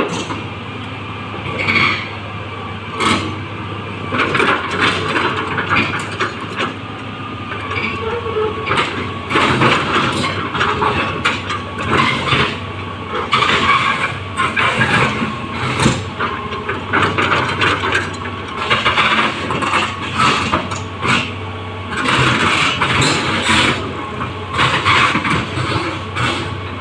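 Excavator's engine running steadily, with repeated surges every second or two as it works.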